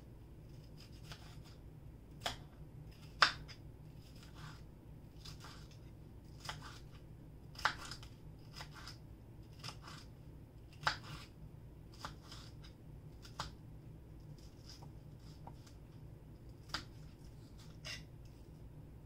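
Kitchen knife dicing vegetables on a cutting board: irregular knocks of the blade against the board, about one or two a second, with a few sharper, louder chops.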